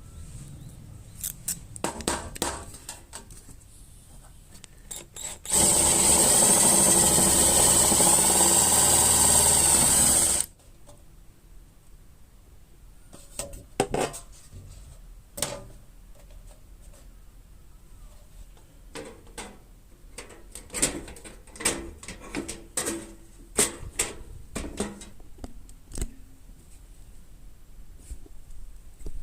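A power tool runs steadily for about five seconds near the start, amid scattered clicks and knocks of parts and tools being handled while a sheet-metal tin is made into a fire pit.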